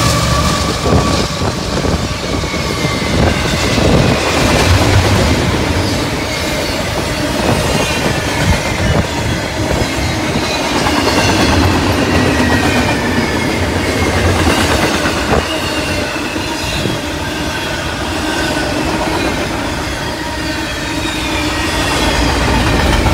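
Double-stack container train rolling steadily past: steel wheels clattering over the rails, with high wheel squeals that come and go again and again.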